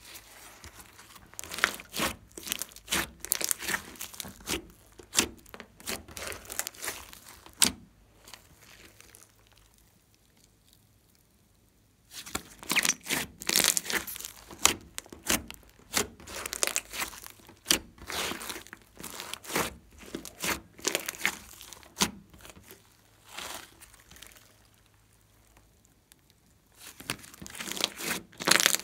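Hands kneading, pressing and stretching a glossy slime mixed with clay and dotted with small foam beads, giving runs of sticky clicking and crackling. The sound stops for a few seconds about a third of the way in and briefly again near the end.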